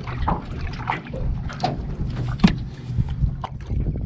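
A paddle dipping and pulling through the water beside a small boat moved by hand with its motor off: several splashes of the strokes and trickling water.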